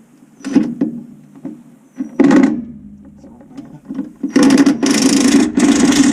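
Power tool running in short bursts: a brief burst about two seconds in, then a longer run near the end with a short break, after a few light clinks of tools.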